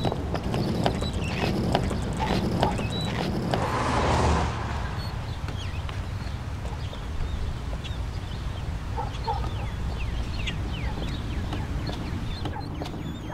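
High-heeled footsteps clicking in an even walking rhythm on a sidewalk, with the low rumble of a rolling suitcase's wheels, for about the first four seconds, ending in a brief whoosh. After that the sound drops to quieter street ambience with faint short high chirps.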